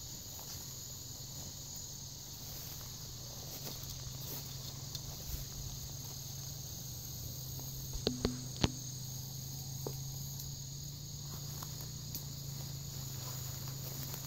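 Steady high-pitched chorus of insects in summer grass and brush, with three or four sharp clicks or snaps about eight seconds in.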